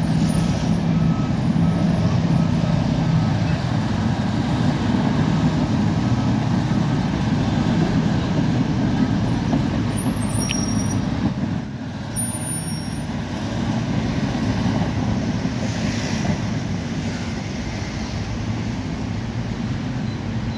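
Bulldozer's diesel engine running steadily, a dense low rumble. It drops off sharply for a moment about twelve seconds in, then carries on a little quieter.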